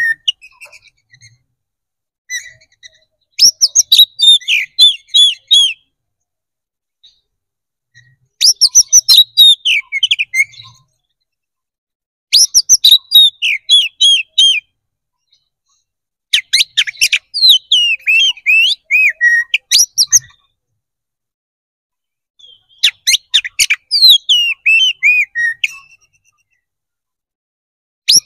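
Oriental magpie-robin singing in loud, clear whistled phrases. There are five bursts of two to four seconds each, separated by silences of about two seconds, and a sixth begins right at the end. Each phrase is a rapid run of notes that slide downward in pitch.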